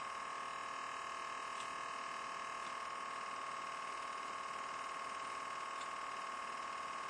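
Steady electrical whine: several unchanging high-pitched tones, one much stronger than the rest, over a faint hiss.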